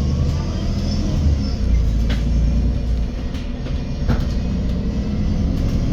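Steady low rumble of a MAN Lion's City 12 CNG hybrid city bus running while driving, heard from inside the bus. Two short rattles or knocks sound about two and four seconds in.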